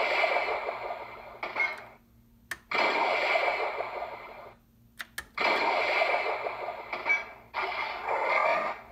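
Electronic harpoon-blast sound effect from the Smugglers Run ride, played through the small built-in speaker of the Hasbro Vintage Collection Millennium Falcon toy as its middle missile launcher is held down. It comes as four noisy blasts of one to two seconds each, with short pauses between them and a brief click in two of the gaps.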